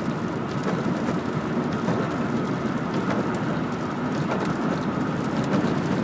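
Steady road noise of a moving car, an even rush with no horn or engine tone standing out.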